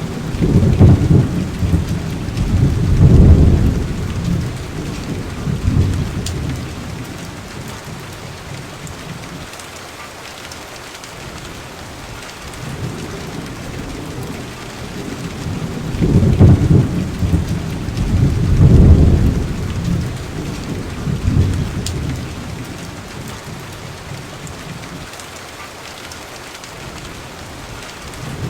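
Steady rain with thunder rolling twice: a long low rumble in the first few seconds and another about halfway through.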